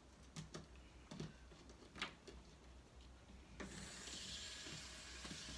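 Faint light clicks and knocks of small plastic pieces being handled, then about three and a half seconds in the small electric motor of a battery toy train starts up with a steady whir.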